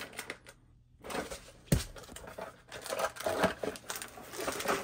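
A cardboard box and its paper insert being handled and pushed together: rustling, scraping and crinkling, with a few light clicks at first and a sharp knock a little under two seconds in.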